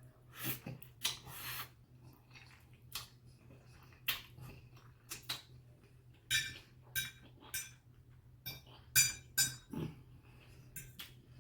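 Close-up eating sounds of a toothless person gumming a mouthful of shrimp chow mein: irregular wet mouth smacks and clicks, about a dozen of them, with a cluster of the loudest about nine seconds in.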